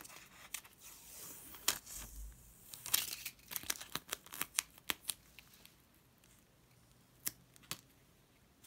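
A glossy, tape-covered paper sticker being peeled off its backing, crinkling and crackling in quick bursts over the first few seconds, then pressed down onto a notebook page with two sharp clicks near the end.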